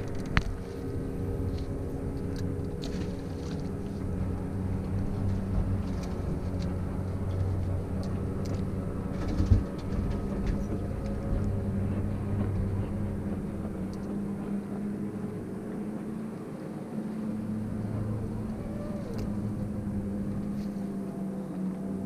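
A boat motor running steadily at low speed, a low even hum. There are a few light clicks, and a single sharp knock about halfway through.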